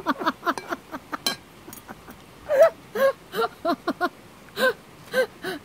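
A person laughing, held back behind a hand over the mouth: a run of short, breathy bursts of laughter about two or three a second through the second half.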